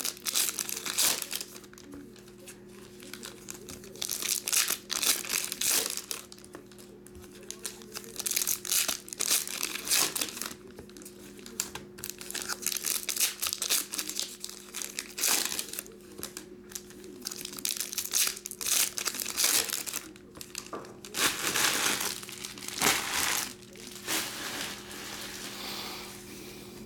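Trading-card pack wrappers crinkling and tearing open in irregular bursts as packs of Topps Pro Debut baseball cards are ripped one after another.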